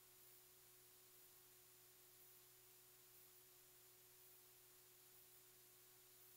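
Near silence: a faint steady hum and hiss of the recording's background.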